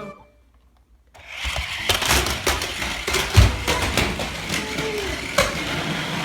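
Remote-control toy vehicle's small electric motor whirring, with plastic clattering and knocks and one heavier thud a little over three seconds in; it starts about a second in.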